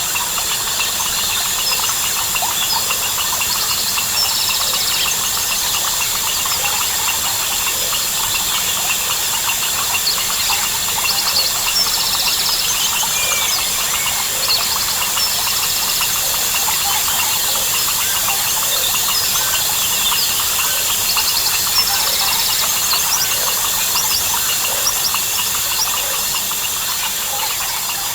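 Dense jungle chorus of crickets, frogs and birds: a steady high insect drone, many short frog calls overlapping, and short buzzy trills repeating every few seconds.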